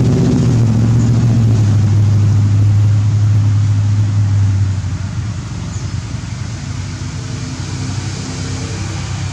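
A motor engine running steadily with a low hum, dropping noticeably in level a little under five seconds in.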